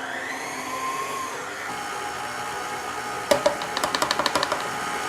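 Electric stand mixer running, beating powdered sugar into a butter and cookie-butter frosting, its motor whine rising and falling in pitch in the first second or so. A little past halfway a quick rattle of sharp clicks joins in.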